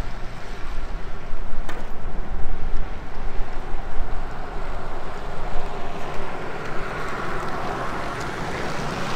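Wind buffeting the microphone over road noise, with the tyre and road noise of a Rivian R1T electric pickup growing louder as it drives up and passes close near the end.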